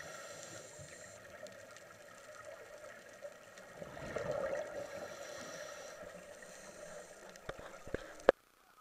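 Underwater sound of a scuba dive: divers' exhaled bubbles rushing and gurgling over a steady hum, swelling about four seconds in. A few sharp clicks come near the end, and a loud click as the sound cuts off.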